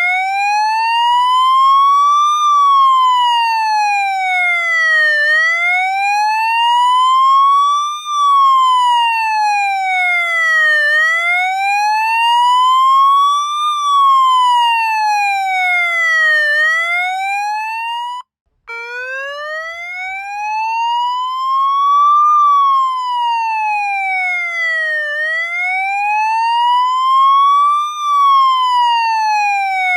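Police siren wailing, its pitch sliding slowly up and then down, about five to six seconds per cycle. A little past halfway it cuts out for a split second and starts again low.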